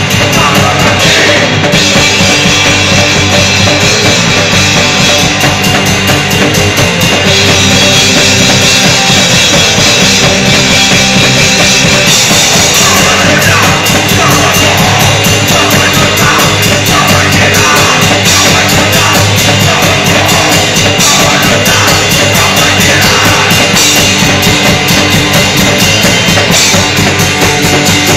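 A punk rock band playing live: electric guitar, bass guitar and a drum kit together, very loud and without a break.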